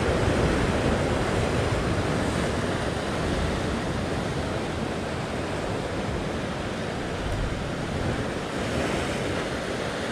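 Ocean surf breaking and washing over the rocks below, a steady rushing, with wind on the microphone.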